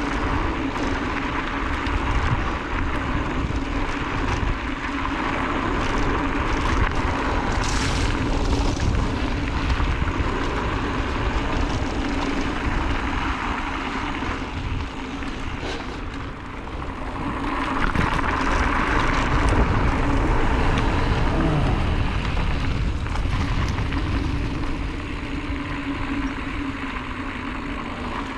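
Mountain bike rolling down a dirt trail: a steady rush of wind over the mic over a low rumble and rattle of tyres and frame on the ground. It swells louder about two-thirds of the way through.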